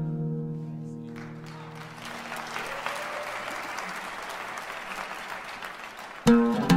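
Oud notes ring out and fade, then an audience applauds for several seconds. Near the end, oud plucking starts again abruptly.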